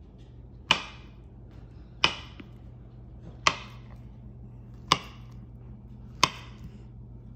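Knife chopping through a banana onto a cutting board: five sharp knocks, evenly spaced about a second and a half apart.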